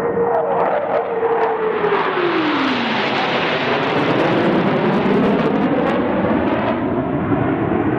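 Blue Angels F/A-18 Hornet jets flying past in formation: a loud jet roar with a whining tone that drops in pitch about two to three seconds in as they go by.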